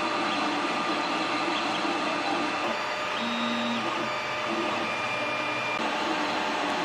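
Ender 3 Pro 3D printer running: a steady fan hiss with short whining tones from the stepper motors that change pitch from move to move as the print head travels.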